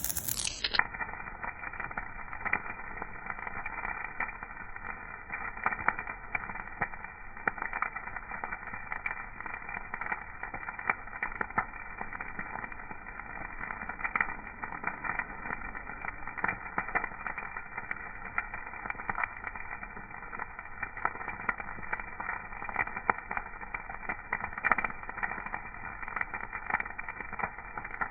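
Fire crackling, with frequent irregular sharp pops over a steady hiss. The sound is dull, with its high end cut off from about a second in.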